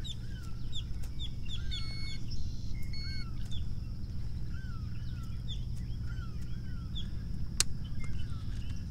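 Marsh birds calling all around: many short, repeated chirps and slurred calls, over a constant low rumble and a steady high tone. A single sharp click comes near the end.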